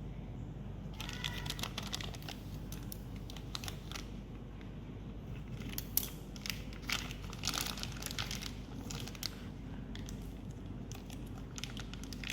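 Packaging crinkling and rustling as it is handled and unwrapped, a dense irregular crackle that starts about a second in.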